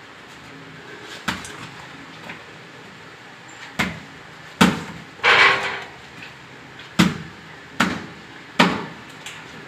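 Fist blows on a whole green coconut resting on a concrete floor: a run of about seven sharp thuds at uneven intervals, with a longer, noisier burst about five seconds in.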